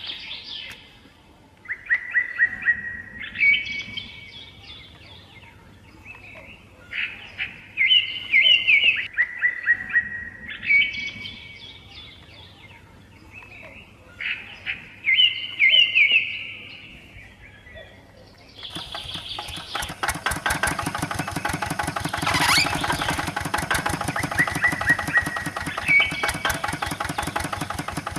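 Songbirds singing in repeated short chirping phrases. About two-thirds of the way in, the RC model walking tractor starts running: a dense, rapid, steady ticking from its small motor and belt-and-gear drive, with the birds still heard over it.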